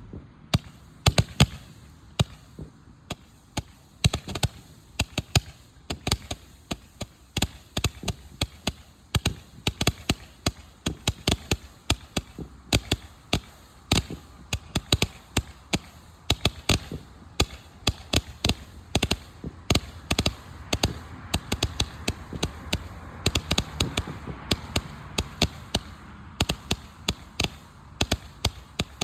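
A firework going off: an irregular run of sharp pops and cracks, several a second, over a faint hiss that swells for a few seconds about twenty seconds in.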